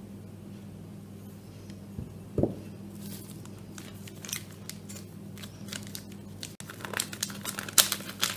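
A paper spice sachet of ground cardamom crinkling as it is handled and opened, with many sharp crackles from about three seconds in. There is one knock shortly before, and a low steady hum underneath.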